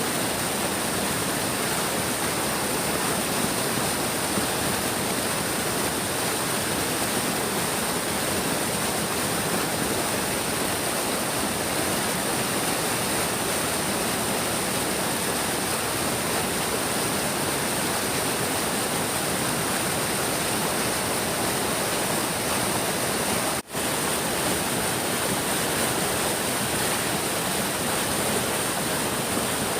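Big stream flowing: a steady, dense noise of running water with no let-up. The sound cuts out for an instant about two-thirds of the way through.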